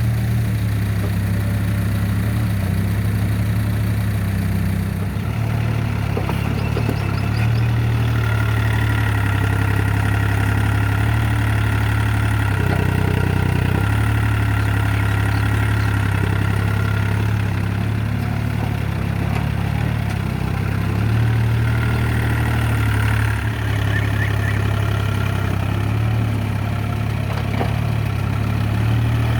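Hitachi EX30 mini excavator's diesel engine running steadily while it works, with a higher whine that comes and goes.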